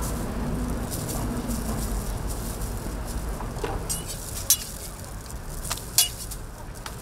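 Steady low rumble of street traffic, with a few sharp clicks about three and a half, four and a half and six seconds in.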